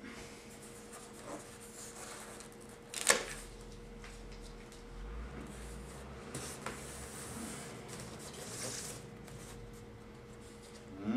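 Scraping and rubbing as a white foam packing box is worked open with a small blade, with one sharp click about three seconds in. There is a faint steady hum underneath.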